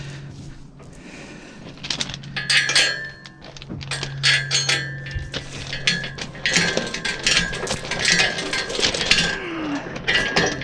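Repeated metal clanks and clinks with a ringing note, from steel parts and tools knocking together while the engine is worked loose. They come in irregular clusters from about two seconds in until just before the end.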